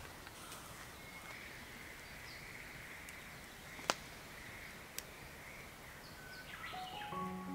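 Faint steady chorus of calling creatures, with two sharp clicks about four and five seconds in, the first the loudest. A mallet-percussion tune begins near the end.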